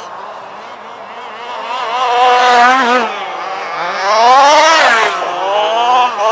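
Small two-stroke petrol engines of 1/5-scale HPI Baja RC buggies revving up and down as they race past, loudest about two and a half seconds in and again a little after four seconds.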